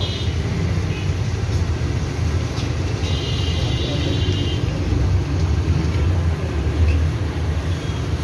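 Steady low rumble of road traffic, with a high-pitched vehicle horn sounding for about a second and a half about three seconds in, and briefly at the very start.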